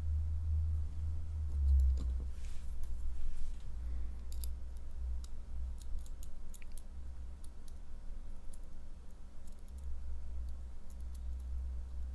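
Lock picks and tension tool working in an Assa cabinet lock, giving scattered small metallic clicks, with a brief hiss about two seconds in and a steady low hum underneath.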